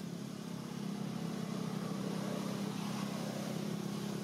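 Steady low drone of a running engine.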